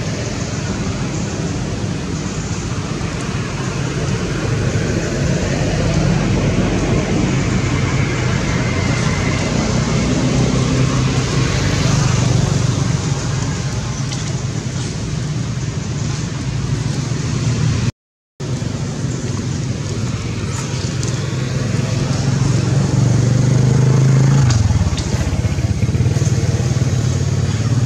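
Steady engine noise of motor vehicles running nearby, with a low hum that swells about two-thirds of the way through and then drops.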